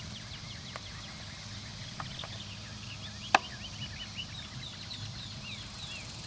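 Many birds chirping, short rising and falling calls several times a second, with one sharp click a little past halfway.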